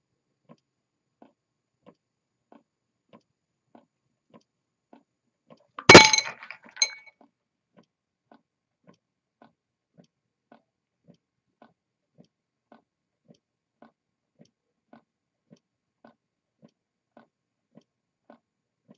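Hand-made low-temperature-difference Stirling engine running on the heat of a hand, its mechanism giving faint regular clicks about three times every two seconds. About six seconds in there is one loud sharp clink with a short ring, and a smaller clink follows under a second later.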